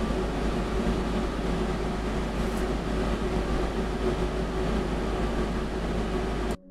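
Steady background room noise, a low hum under an even hiss, like a fan or air conditioner running; it cuts off abruptly near the end.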